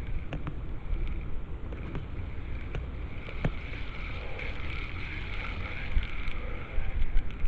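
Wind buffeting the microphone over the steady rush of river water, with a few small clicks scattered through.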